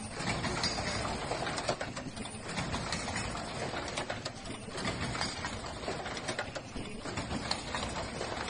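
Automatic disposable face-mask production machine running, with a steady mechanical clatter of many quick clicks.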